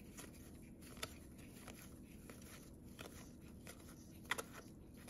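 Upper Deck hockey trading cards being slid off a stack one at a time from hand to hand, making faint soft ticks about every two-thirds of a second, with one sharper flick about four seconds in.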